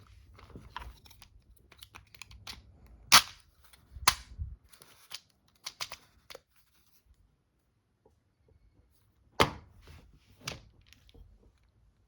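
Handling of a cardboard box of .22LR cartridges: light rustling and small ticks broken by four sharp clicks, two close together early on and two more near the end, with a quiet gap between them.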